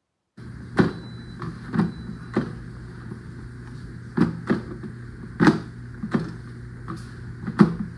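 Air fryer drawer basket worked by its handle, sliding out and back in with a series of hard plastic clunks and clicks, about ten in all, over a steady low hum.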